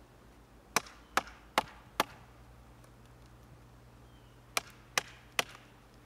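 A wooden baton striking the spine of a SOG Vulcan folding knife to drive its blade down through a branch, seven sharp knocks in two quick runs, four and then three, about 0.4 s apart.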